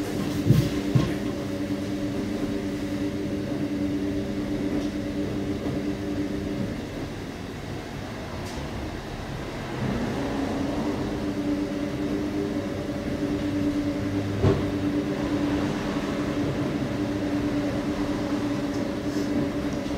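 Ipso WE165 commercial washer running its wash: the drum motor hums steadily as the drum tumbles the linen, stops for about three seconds partway through, then starts up again. A couple of sharp knocks come near the start, and another about two thirds of the way in.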